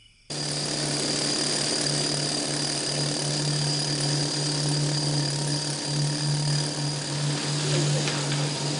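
City street noise that starts abruptly a moment in: a steady engine hum under a dense, even hiss and clatter.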